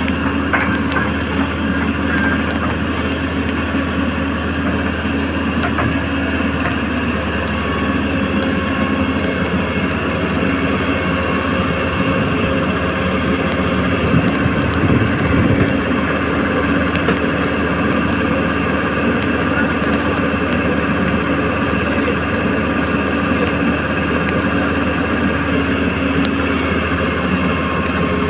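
Small electric motors and gears of a radio-controlled excavator running continuously with a steady mechanical hum.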